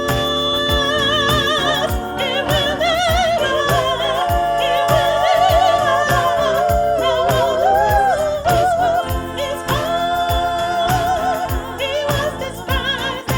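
Music: a solo voice singing with wide vibrato over a band with a steady drum beat and bass.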